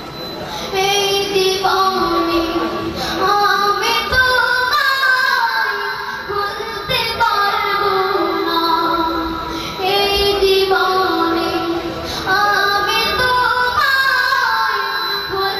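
A boy singing a Bengali Islamic gazal solo into a microphone, in long held, ornamented phrases with short pauses for breath.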